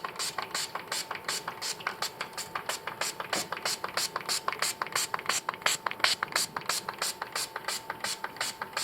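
Small trigger spray bottle of rubbing alcohol pumped rapidly and steadily, about five short click-and-hiss squirts a second, soaking a computer keyboard.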